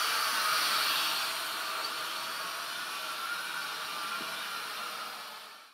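Small quadcopter drone's propellers whirring as it hovers and flies, a steady hissing buzz that slowly gets quieter and fades out near the end.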